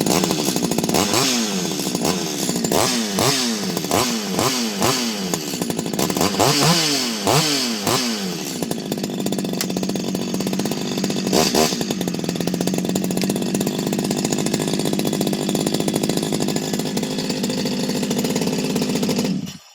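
Rebuilt Stihl 025 two-stroke chainsaw with a modded muffler running. It is blipped up to high revs and back down about a dozen times in quick succession, once more a few seconds later, then idles steadily until it cuts off near the end. The engine sounds smooth and healthy, freshly rebuilt from the bottom end up.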